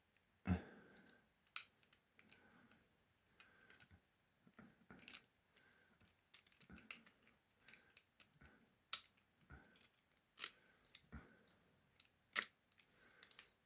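Metal lock pick and tensioner working in a TESSI padlock's pin-tumbler core: faint, irregular clicks and scrapes as the pick is zipped across the flat-bitted pins, with one duller knock about half a second in.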